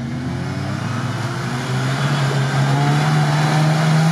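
Suzuki Samurai's engine pulling under load through deep mud ruts. Its note climbs slightly in pitch and loudness about halfway through.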